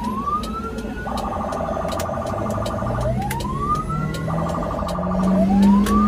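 Ambulance electronic siren cycling: a rapid pulsing tone broken by a rising whoop at the start, about three seconds in and again near the end. Underneath, the ambulance engine rises in pitch as it speeds up, loudest near the end.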